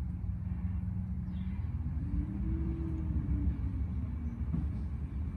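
Motor vehicle engine running with a steady low rumble; its pitch rises and falls once about two seconds in.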